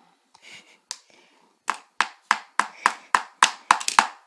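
A rapid run of sharp knocks or slaps, about three to four a second, starting a couple of seconds in and growing quicker, from a child playing, either clapping or banging something on a hard surface.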